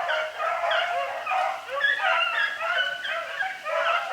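A pack of beagles baying and yelping together in a continuous chorus of overlapping voices, the sound of hounds running a rabbit's trail.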